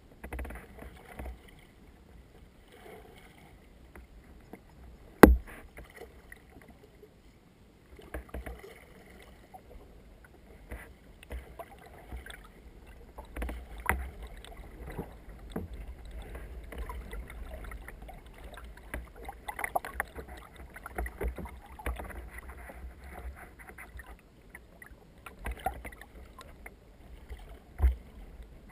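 Canoe paddle strokes: the blade dipping and pulling through river water in irregular splashes and drips. A sharp knock about five seconds in and another near the end stand out above the strokes.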